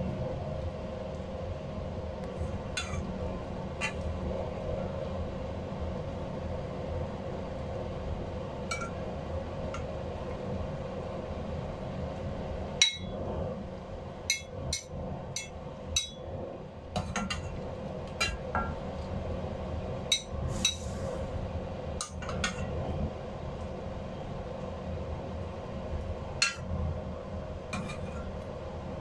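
A metal spoon clinking and scraping against a saucepan as vegetable soup is stirred and ladled out, in scattered sharp knocks, the sharpest about thirteen seconds in. A steady low hum runs underneath.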